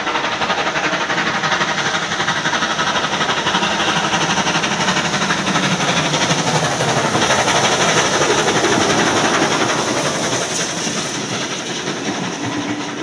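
Steam locomotive 3801, a streamlined 4-6-2 Pacific, working hard under load: a rapid, even run of exhaust beats with steam hiss, loudest about eight seconds in and fading near the end.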